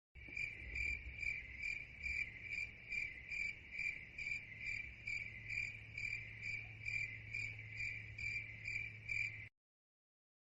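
Crickets chirping sound effect, the stock cue for an awkward silence. A high chirp repeats steadily, about two and a half times a second, over a faint low hum, and stops abruptly near the end.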